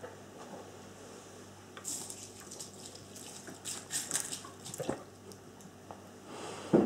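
Milk pouring from a carton onto a bowl of dry cereal, splashing and crackling for about three seconds, then a knock, and a loud thump near the end as the carton comes down on the wooden table.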